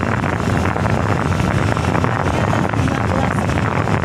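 Steady running noise of a moving road vehicle, with wind rushing over the microphone.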